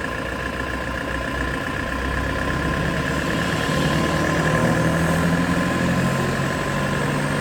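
Engine idling steadily, growing a little louder about two seconds in.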